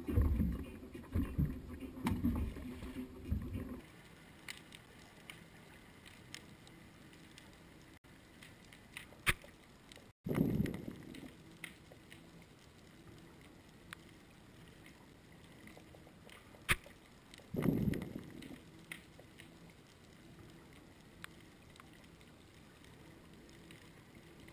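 Low rumbling deck noise from the boat for the first few seconds. Then a quiet, muffled underwater hiss from a camera in a waterproof housing lowered below the boat, broken by a few sharp clicks and two short low thuds.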